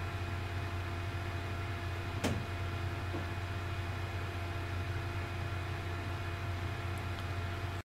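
A steady low mechanical hum with a few faint steady whine tones above it, and one sharp click a little over two seconds in. It cuts off abruptly just before the end.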